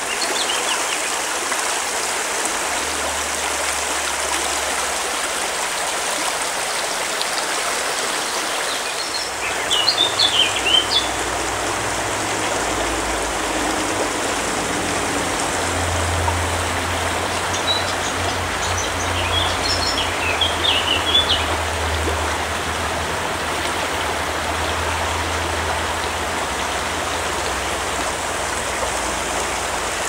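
Shallow mountain creek rushing steadily over stones. A bird chirps in short bursts about ten seconds in, and again around eighteen to twenty-one seconds in.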